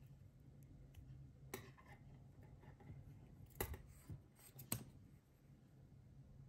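Near silence with a faint low hum, broken by three small sharp clicks, about 1.5, 3.5 and 5 seconds in, from hands handling thin wire and small craft materials.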